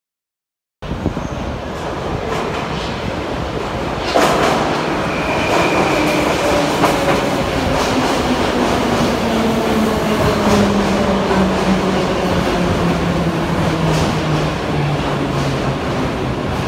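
81-717.5/714.5 metro train running into a station, starting abruptly about a second in. Wheels clatter over the rails with sharp knocks, and the traction-motor whine falls steadily in pitch as the train slows.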